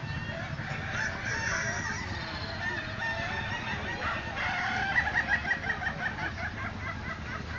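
Ayam Ketawa roosters crowing. About five seconds in, one gives the breed's long staccato 'laughing' crow, a rapid run of short notes about eight a second lasting some two seconds, over other crowing.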